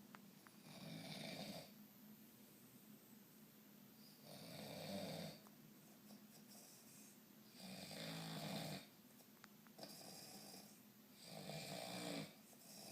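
A man snoring in his sleep after a few drinks, five snores in a slow rhythm, each about a second long.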